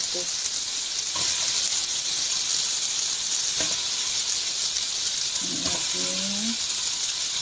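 Onions, tomatoes and squash sautéing in hot oil in a metal wok: a steady sizzle, with a few soft knocks as cubes of squash are dropped into the pan.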